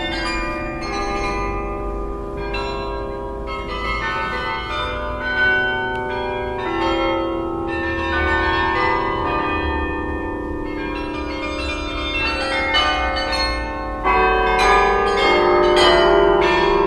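Carillon bells playing, many bell tones struck in quick succession and ringing on over one another, over a low rumble; louder near the end.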